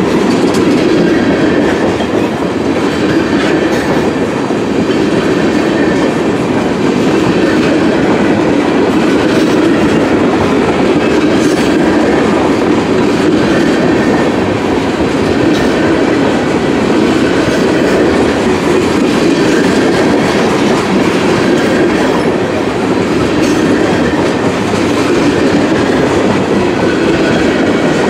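Norfolk Southern manifest freight train's cars rolling past with a loud, steady rumble of steel wheels on rail.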